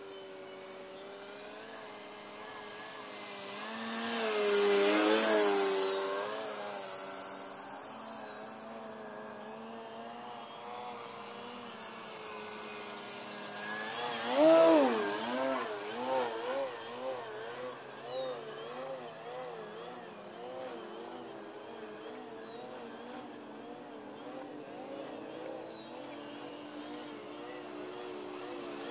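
Electric aerobatic RC plane's Torque 2814/820 brushless motor and 12x6 APC propeller buzzing, its pitch rising and falling with the throttle. It grows loud on a pass about five seconds in, and again about fourteen seconds in, where the pitch drops sharply as it flies by; after that the pitch wobbles quickly up and down.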